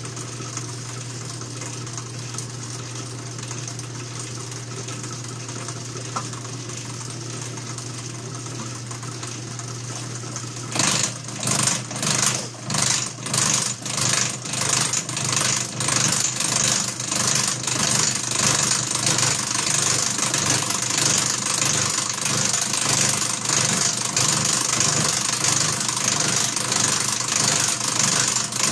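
Atlas horizontal milling machine running with a steady hum. About eleven seconds in, the cutter bites into the stainless-steel piston valve as the knee is cranked up, with a pulsing cutting noise several times a second that after a few seconds becomes a steady, louder grinding cut.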